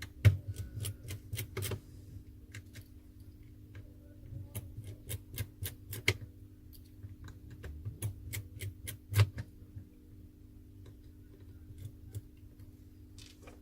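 Irregular sharp clicks and taps of a small screwdriver on the screws and frame of a Samsung Galaxy J6 Plus as its screws are taken out. The clicks come in a busy cluster in the first two seconds and again around four to six and eight to nine seconds in, with single loud clicks just after the start and about nine seconds in.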